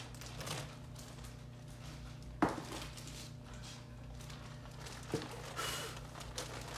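Box and packaging being handled and moved aside, with a sharp knock about two and a half seconds in, a lighter knock near five seconds and a brief rustle after it, over a faint low hum.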